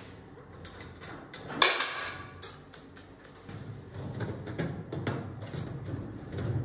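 Galvanized sheet-metal round duct being handled and fitted onto a supply trunk: one loud metallic clang about one and a half seconds in, followed by a thin high ring for about a second, then lighter clicks and scrapes of metal on metal.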